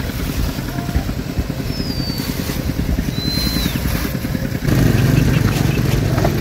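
A small engine running steadily, which gets louder and deeper about two-thirds of the way through, with a few short, high chirps over it.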